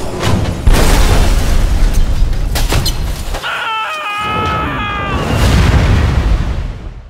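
Loud explosion sound effect dubbed over a toy dirt bike crash: a sudden booming rumble that lasts several seconds. A wavering pitched wail runs over it around the middle.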